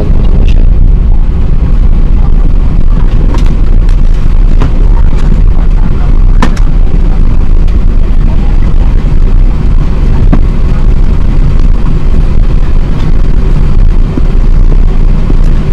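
Airbus A380 engines at takeoff power heard from inside the passenger cabin: a loud, steady low rumble with scattered faint clicks.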